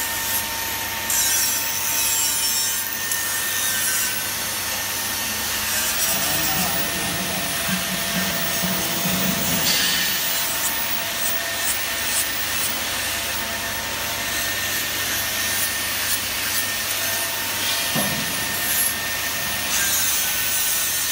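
Steady machine noise with a low hum, as from a chamber vacuum packing machine's pump running, with a clear plastic bag crinkling as it is handled a few times.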